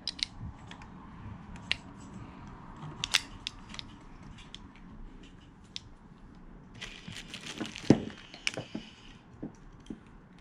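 Scattered sharp clicks and knocks of metal parts and tools being handled at a workbench, with a stretch of rustling toward the end and one louder knock about eight seconds in.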